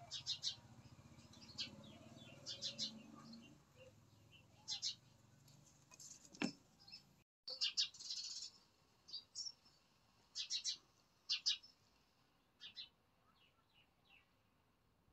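Small birds chirping in quick clusters of two or three short, high chirps, repeated throughout. A single sharp knock about six and a half seconds in.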